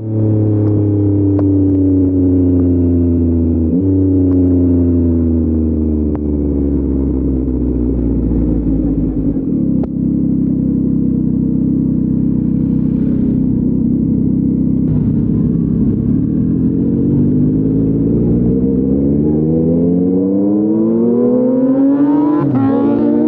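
Yamaha MT-09's three-cylinder engine through an Akrapovic full-system exhaust, revs falling as the bike slows, with a brief jump in pitch about four seconds in from a downshift. It then runs at steady low revs before accelerating from about twenty seconds in, with an upshift near the end.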